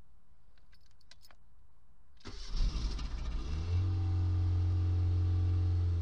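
Autobianchi A112 Abarth's four-cylinder petrol engine cold-started, heard from inside the cabin: a few faint clicks, then about two seconds in the starter cranks and the engine catches at once. It runs roughly for a second or so, then settles into a steady, fast idle.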